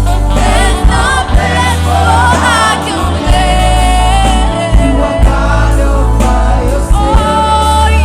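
Gospel song: a choir singing a held, gliding melody over bass and drums with a steady beat.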